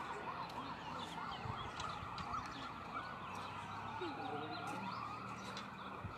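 Emergency-vehicle siren heard from afar, with a fast yelp in the first second or so, then a slow wail that falls and rises again.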